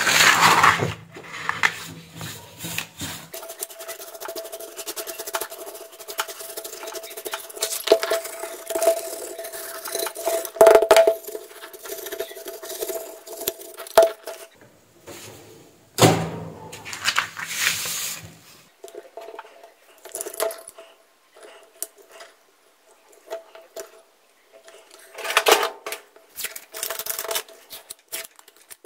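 Workbench handling sounds: a power-supply circuit board and tools being picked up, set down and cleaned, with small clatters, scrapes and rustles, over a faint steady hum.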